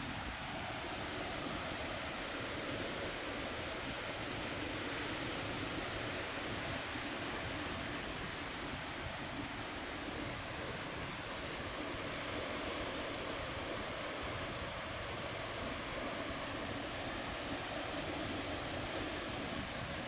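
Steady rush of heavy ocean surf breaking during a big swell, with no single wave standing out.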